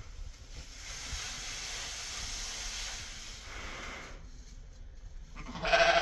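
A sheep bleats once near the end, a short loud call, after a few seconds of soft, steady hiss.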